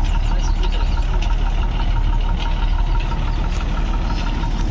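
Large farm machine engine running steadily at a constant speed, a deep rumble with a steady whine on top.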